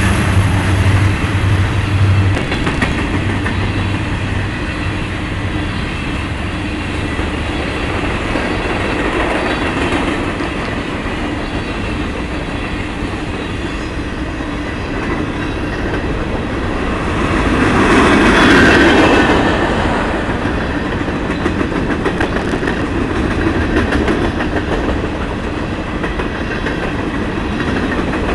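Empty covered hopper cars of a freight train rolling past close by, wheels clicking over the rail joints in a steady clickety-clack. The locomotives' low engine hum dies away in the first couple of seconds, and the rolling noise swells louder for a couple of seconds about two-thirds of the way through.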